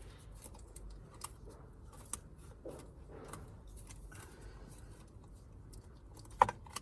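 Small clicks and scrapes of a metal HT-lead hook tool and hands working at a spark plug lead in an engine bay, with one sharper click near the end.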